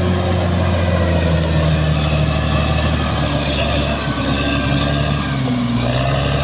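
Bulldozer's diesel engine running steadily, its pitch dipping briefly about five and a half seconds in.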